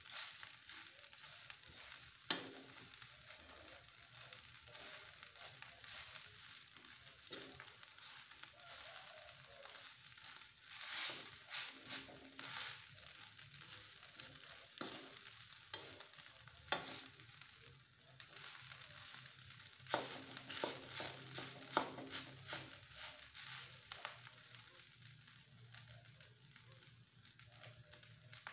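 Fried rice sizzling in a wok on a gas burner while a spatula stirs and tosses it, with sharp scrapes and knocks of the spatula against the pan now and then.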